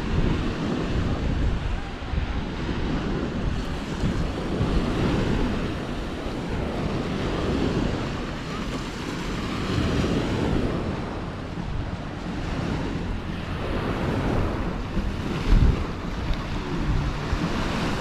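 Sea waves washing onto a sandy beach, with wind buffeting the microphone in low rumbles. There is a brief low thump about three-quarters of the way through.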